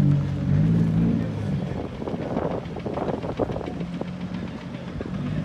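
Nissan Skyline R33 engine running at held revs. A rougher, noisier stretch rises over it about two seconds in, then the steady engine note returns near the end.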